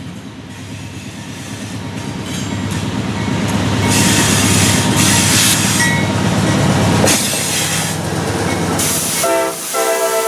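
A GE AC4400CW diesel locomotive with a bad turbocharger working under load, its engine growing louder to a peak about four to seven seconds in, then dropping off. About nine seconds in its Nathan K5LA horn starts sounding a steady chord.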